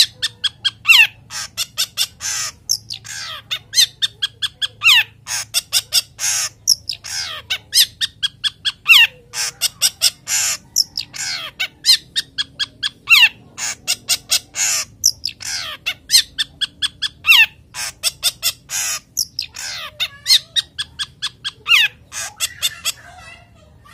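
Male long-tailed shrike (cendet) singing a fast, harsh song: a dense string of scratchy notes, several a second, mixed with short falling whistles. This is the excited song of a male in breeding condition, used as a lure. The song stops near the end.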